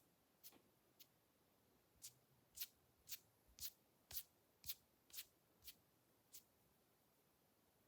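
Faint, soft brushing swishes in a steady run of about two a second, the strongest in the middle.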